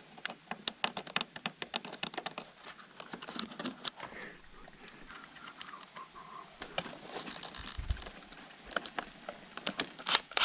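Hands working at vinyl soffit and siding trim to fit a camera mount: an irregular run of small clicks, taps and scrapes.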